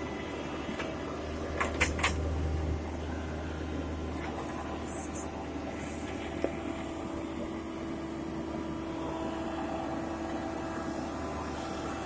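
Horizontal directional drilling rig's engine and hydraulics running steadily with a low hum. There are a few sharp metallic clinks about two seconds in and again around four to five seconds in.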